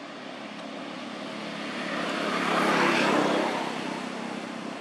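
An off-screen engine passing by: a noisy hum that swells to its loudest about three seconds in and then fades.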